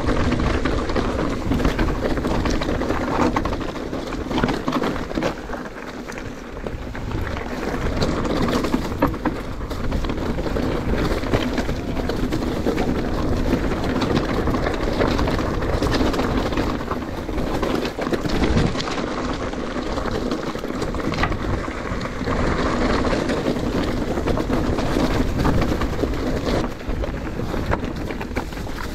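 Mountain bike riding over a rough trail: a continuous rush of tyre and wind noise, with many small rattles and knocks.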